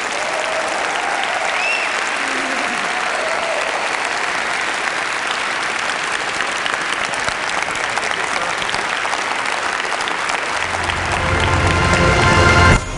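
Large audience applauding, a dense steady clapping. Near the end it swells louder as low music comes in under it, then cuts off abruptly.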